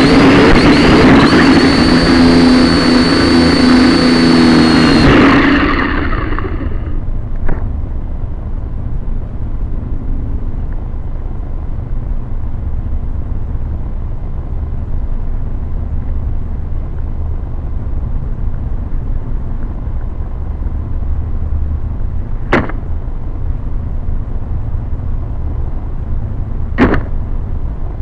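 Syma X5C quadcopter's four small motors and propellers whining in flight, then cutting out about five seconds in and spinning down as it comes to rest in the grass. After that, a steady low wind rumble on its onboard camera microphone, broken by three sharp clicks.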